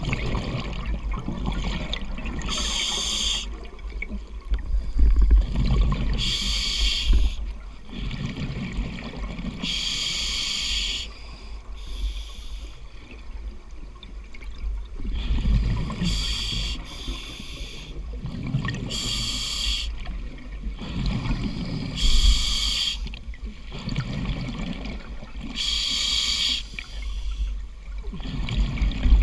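A scuba diver breathing through a regulator, heard underwater through the camera housing: a regular cycle of inhaled hiss and exhaled bubble bursts, a breath about every three to four seconds, over a steady low rumble.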